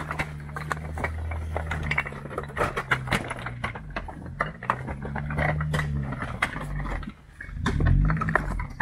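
Jeep Gladiator engine at low crawling speed, its revs rising and falling in short pushes as the truck climbs over loose rock. Rocks crunch and click under the tyres.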